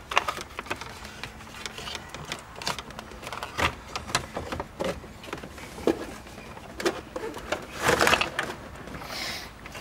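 Hard plastic clicks, taps and rattles as a car's center console trim bezel is handled and worked into place, with a louder cluster of knocks about eight seconds in.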